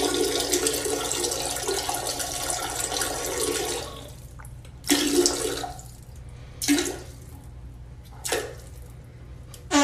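A rushing, water-like noise, like a toilet flush, for about four seconds. It is followed by four short bursts of similar noise roughly every one and a half seconds, over a steady low hum.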